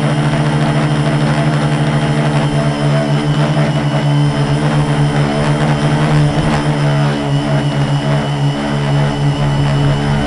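The quadcopter's four Multistar 2212 920kv brushless motors spin 10-inch propellers in a steady, loud hum, heard close up from the camera on the frame. The pitch wavers slightly.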